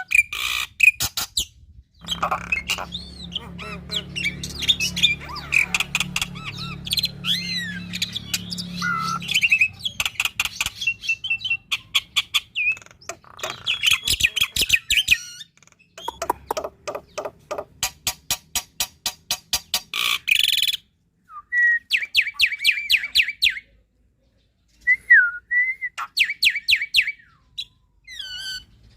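Black-winged starling singing a long, varied song of rapid clicking rattles, chattering and rising and falling whistles, packed with mimicked fill-in phrases. The song breaks off briefly a few times, and a low hum runs beneath its first part.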